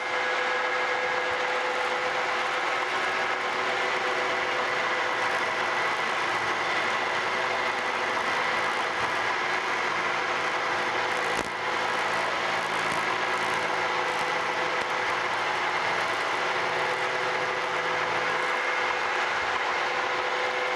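Vertical milling machine running steadily with its end mill side-cutting along the end of a metal plate, a light clean-up pass to square the end. A steady machine hum with a few held high tones, and one brief dip in level about halfway through.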